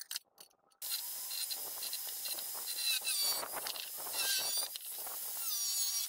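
Angle grinder with a thin cutting disc cutting through steel: a harsh, high whine that starts about a second in and keeps going, its pitch wavering as the disc bites. A few light clicks come just before it starts.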